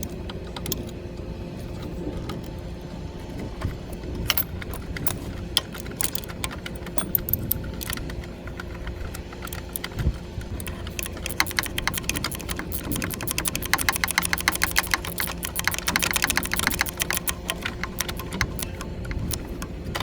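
Hand tools working on metal parts of the forklift's hydraulic pump mounting: scattered metallic clinks, then, about halfway through, a long run of rapid, even clicking lasting several seconds, over a steady low hum.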